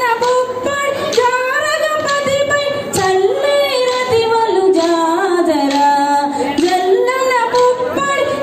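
A woman's voice singing a Telugu folk song, its melody moving up and down in steps with hardly a break.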